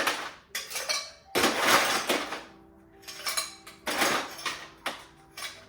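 Ice cubes clattering into a glass: a series of short rattling bursts, with faint ringing from the glass after some of them.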